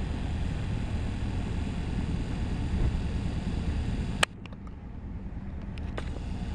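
Low, steady rumble of the river ferry's engine under way, with wind hiss on the microphone. A sharp click about four seconds in, after which the hiss drops away for a couple of seconds while the rumble carries on.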